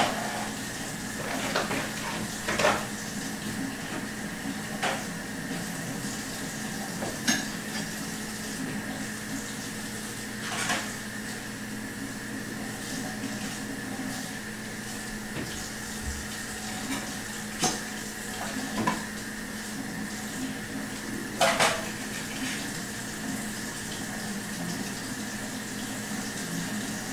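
Steady background hum with about nine short, sharp clinks and knocks at irregular intervals, the loudest right at the start and about two and three-quarter and twenty-one and a half seconds in, some ringing briefly.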